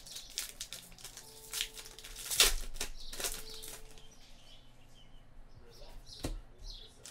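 AFL trading cards handled and flicked through by hand: short papery rustles and snaps of card stock, the sharpest about two and a half seconds in and again near the end.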